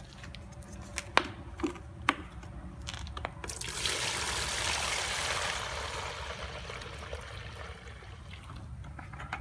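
A few sharp knocks, then brine water poured from a plastic jug into a clear plastic tub, splashing. The splashing is loudest early in the pour and slowly eases off.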